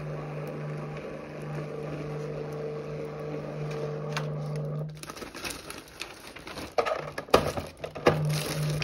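Thermal tattoo stencil copier's feed motor running with a steady hum as it draws the stencil sheet through, working normally after a factory reset. The hum stops about five seconds in, followed by irregular rustling and clicks.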